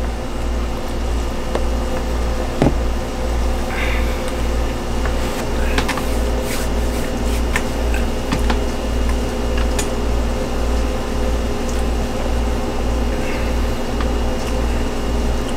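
Steady machine hum with an evenly pulsing low rumble underneath and a few faint clicks and taps.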